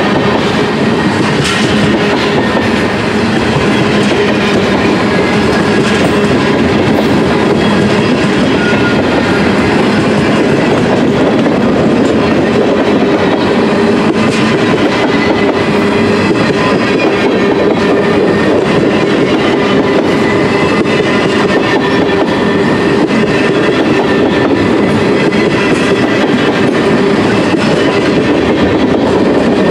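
Freight train of tank cars rolling past close by: steady loud noise of steel wheels on the rails, with faint steady ringing tones.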